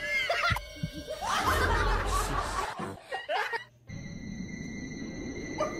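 A person snickering and laughing, with music under it.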